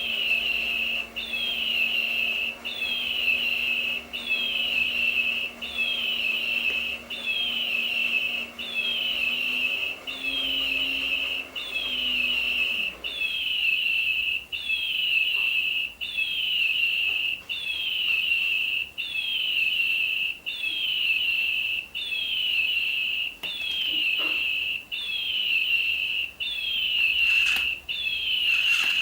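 Electronic toy bird's chirp repeating on a loop, a short falling whistle about once a second, each one identical. A faint low hum sounds underneath and stops about halfway through.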